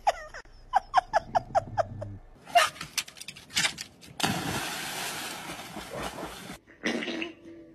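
A cat gives a quick string of about seven short cries. Then comes a loud splash and about two seconds of churning water as a cat leaps off a dock into the sea, ending abruptly.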